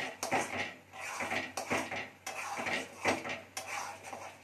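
Spatula scraping and stirring thick, nearly finished egg dal tadka around a metal kadhai, in irregular strokes about twice a second.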